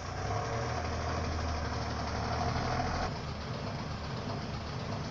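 Flatbed tow truck's engine running as the truck reverses up to the garage; the engine note drops about three seconds in.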